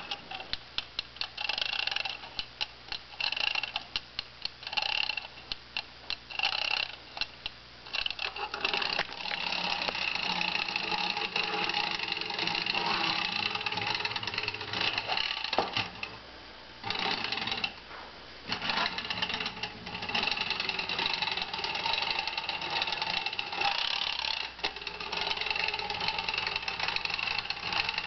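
Clockwork spring motor of an antique German tinplate wind-up lady toy: short bursts of rapid ratchet clicking for the first several seconds as it is wound, then the wound mechanism runs with a steady whirring rattle, cutting out briefly a couple of times.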